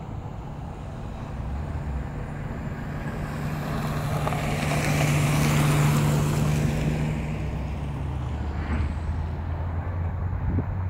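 A vehicle passing on the road: engine hum and tyre hiss swell to a peak about halfway through, then fade, the hum dropping in pitch as it goes by.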